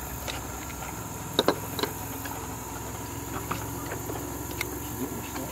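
Sharp metallic clicks of a Beretta Pico .380 pocket pistol being worked by hand, with a quick double clack about a second and a half in, while a round that failed to eject is cleared. A steady hum runs underneath.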